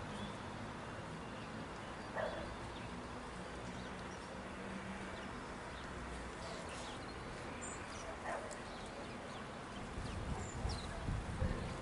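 A dog barking a few times, single barks spaced seconds apart, with faint high chirps of small birds. A low rumble comes in near the end.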